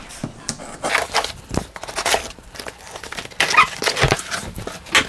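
Cardboard shipping box being opened by hand: packing tape pulled loose and the cardboard flaps scraping and creaking. The sounds come as irregular rips and scrapes, loudest in the last second and a half.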